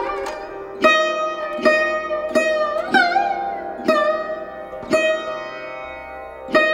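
Background music: a plucked string instrument playing slow single notes, about one a second, each decaying slowly, with the pitch bending on several of them.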